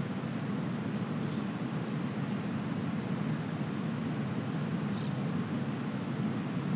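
Steady rushing of river water, unchanging, with a faint high-pitched chirp pulsing a few times a second above it.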